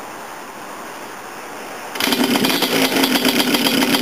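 Freshly rebuilt Yamaha Blaster ATV's single-cylinder two-stroke engine being kick-started on choke; it catches suddenly about halfway through and runs steadily at a fast idle.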